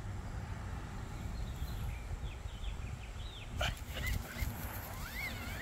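A dog whimpering in short, high, rising and falling whines, with one sharp short sound about three and a half seconds in, over a steady low rumble.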